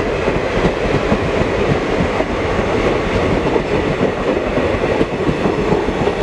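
Passenger train coaches rolling past close by as the train pulls out of a station, the wheels clattering in a rapid, irregular run of ticks over the rail joints.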